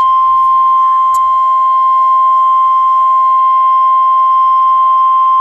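NOAA Weather Radio 1050 Hz warning alarm tone: one loud, steady, pure tone, the signal that a warning broadcast (here a tornado warning) is about to follow.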